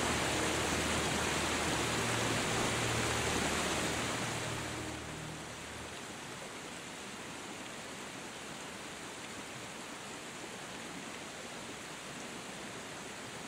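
Steady rushing of a mountain waterfall or stream. Over the first five seconds the last held notes of background music fade out, leaving only the even rushing.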